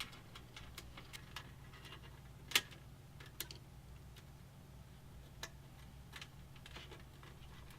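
Scattered light clicks and taps of hands working a cable inside a computer case, with one sharper click about two and a half seconds in, over a faint steady low hum.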